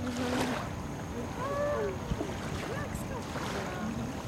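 Wind on the microphone and small waves lapping at the shore, a steady noisy rush.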